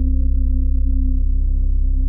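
Dark ambient music: a deep, steady low drone with several sustained ringing tones held above it.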